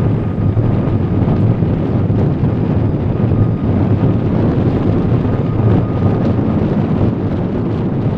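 Wind buffeting the camera microphone, a steady low rumble, with a faint thin steady tone running through it.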